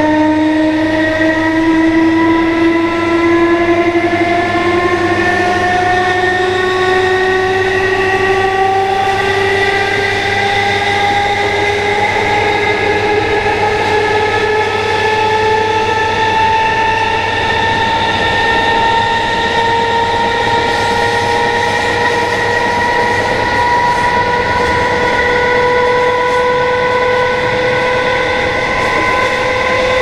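Class 319 electric multiple unit's DC traction motors whining as the train accelerates, several tones climbing slowly and evenly in pitch together, heard from inside the carriage.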